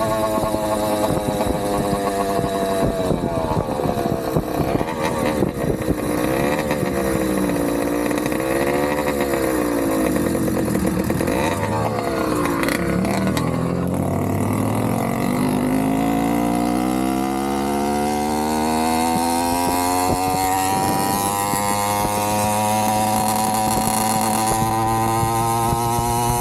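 Two-stroke motorized-bicycle engine (Avenger 85 with Nibbi PE19 carburetor, exhaust through a repaired Gomax pipe) running under way. Its pitch falls and wavers as the throttle eases off, then rises steadily for about ten seconds as the bike accelerates.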